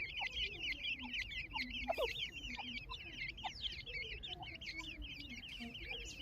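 A brood of grey francolin (grey partridge) chicks peeping constantly: many high, quivering chirps overlapping without a break. Short, soft low calls sound beneath them now and then.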